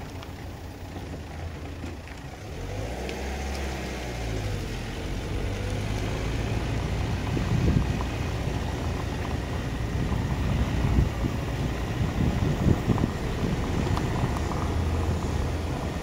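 Car driving on an unpaved road: low engine and road rumble with wind buffeting the microphone, growing louder after about two seconds.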